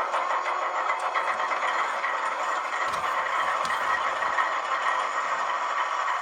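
A DCC sound decoder in a model diesel locomotive plays a GE 7FDL 16-cylinder diesel engine running steadily. It comes through the model's small onboard speaker, thin and without bass, with a rattly, clattering edge.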